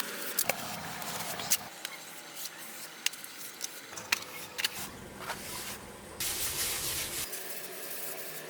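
Small-scale handwork on a miniature build: scattered sharp clicks and scraping, with about a second of hissing noise some six seconds in.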